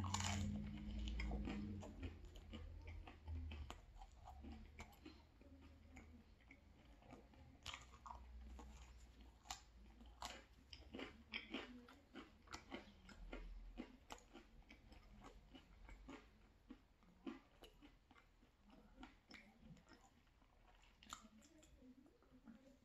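Quiet, close-up chewing of a mouthful of pizza: a bite right at the start, then steady chewing with many small, irregular crisp crunches from the crust.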